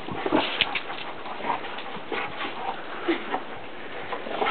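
A dog making short, scattered sounds as it romps through snow.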